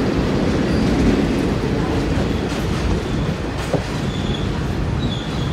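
Indian Railways passenger coaches rolling past on the rails, wheels clattering steadily, easing slightly after about three seconds as the last coach passes and draws away. A faint thin wheel squeal comes in during the second half.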